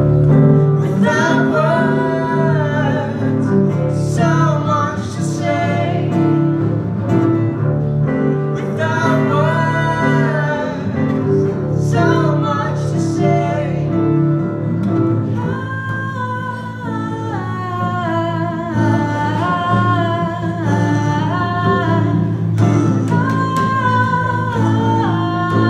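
Live acoustic folk song: a woman singing with a strummed acoustic guitar, a man on double bass holding long low notes and joining in with a second voice.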